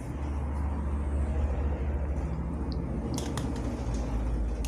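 A steady low rumble with a faint hiss over it. A few light metal clicks come about three seconds in, as a perforated skimmer scoops noodles against an aluminium pot.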